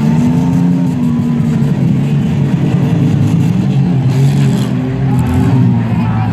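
Demolition derby cars' engines running and revving, their pitch rising and falling as the cars manoeuvre around the dirt arena.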